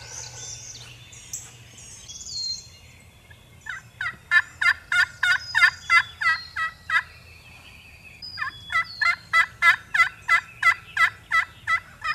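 Turkey yelping in two long runs of evenly spaced yelps, about four a second, the second run starting a little over a second after the first ends.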